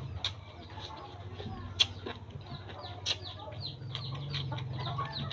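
Chickens peeping nearby, a quick string of short, high, falling calls. Several sharp crunches come from biting and chewing raw vegetables.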